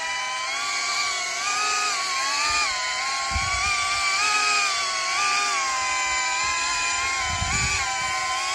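Small FPV drone with ducted propellers hovering, its propellers whining steadily with a pitch that wavers up and down as the throttle is corrected. Two brief low rumbles come through, about a third of the way in and near the end.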